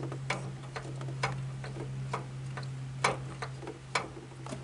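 Light, uneven mechanical ticking, about two clicks a second, over a steady low hum.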